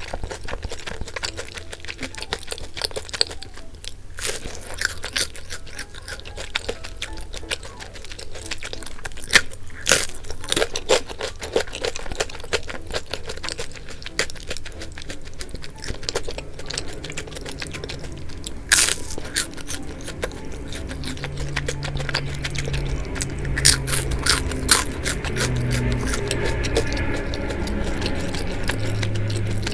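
Close-miked eating of bungeoppang, the fish-shaped pastry: repeated crisp bites and chewing, with a few sharper crunches.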